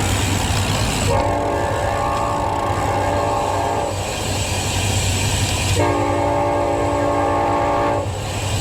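Freight train going by: the locomotive's horn sounds two long blasts, a chord of several tones, the first about three seconds long starting about a second in and the second about two seconds long. Beneath them runs the train's steady low rumble.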